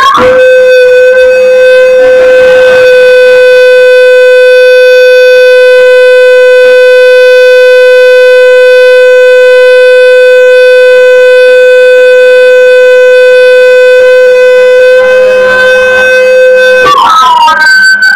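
Live electronic noise music: one loud, steady droning tone with strong overtones, held for about seventeen seconds, sliding up into pitch at the start and breaking into wavering glides near the end.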